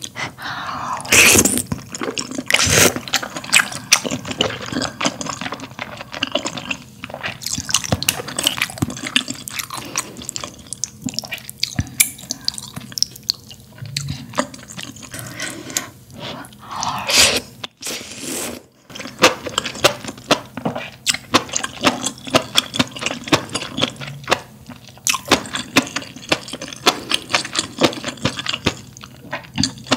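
Close-miked wet eating sounds of a person slurping and chewing glass noodles from spicy malatang broth: many short wet clicks, with longer slurps about a second in and again around 17 seconds.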